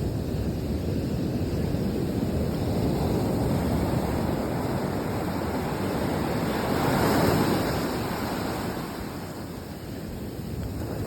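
Ocean surf: a steady rush of waves, with one wave swelling and breaking about seven seconds in, then easing off.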